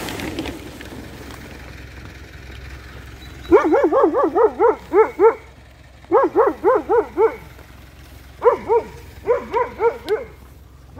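Dog barking in three bursts of quick, sharp barks, starting about three and a half seconds in.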